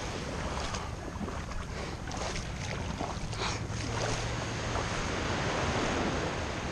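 Small waves washing up on a sandy shoreline, with wind on the microphone and a few light splashes from feet in the shallow water.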